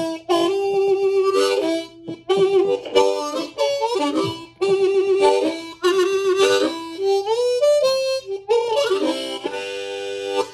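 Ten-hole diatonic harmonica in C played cross harp, in the key of G, with cupped hands: a blues-style run of notes in short phrases, some notes sliding in pitch.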